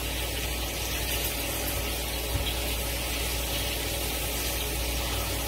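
Pork chops frying in butter in a pan: a steady sizzling hiss over a low, steady hum.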